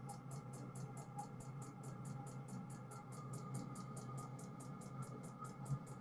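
12 V diesel air heater running after start-up: a steady fan whir and hum, with a rapid, even ticking of about five a second from its fuel dosing pump.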